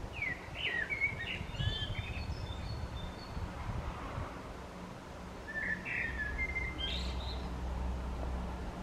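Male Eurasian blackbird singing: two song phrases, one at the start and one about six seconds in, each of fluting whistled notes ending in higher, thinner twittering. A low rumble runs underneath.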